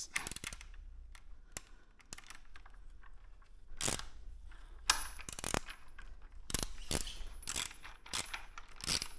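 Metal clicks and clinks of a hand ratchet and tools working a frame-slider bolt into a motorcycle frame, with a quicker run of ratchet clicks in the second half as the bolt threads in by hand.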